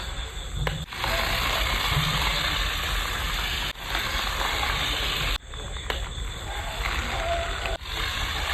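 Toy RC off-road truck driving, its small electric motor and gears making a steady noisy mechanical whir with some rattle. The sound breaks off abruptly several times where short clips are joined.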